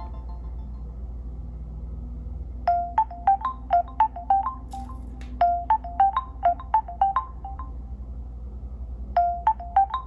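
A Nokia Lumia 1520 ringtone from Windows Phone 8 playing through the phone's small loudspeaker. A quick phrase of short, bright notes starts about two and a half seconds in and repeats three times.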